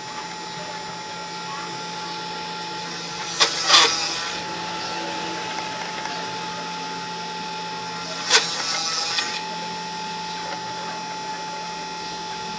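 Homemade Arduino Mega–controlled CNC machine running: a steady motor whine holding several fixed tones, broken by two short, loud, noisy bursts about four and eight seconds in.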